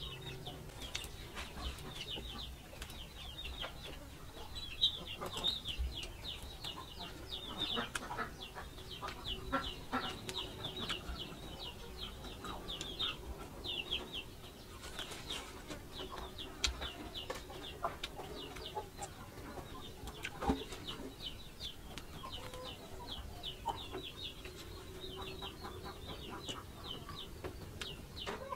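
Chickens clucking, with many short, high, falling calls repeated rapidly for most of the stretch, and scattered sharp clicks from bites and chewing of crunchy fried pork.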